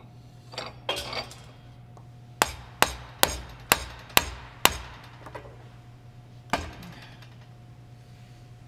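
Dead-blow mallet striking the pump assembly during a rebuild: six sharp blows about two a second, then a single blow after a short pause, with some clattering of parts being handled before them.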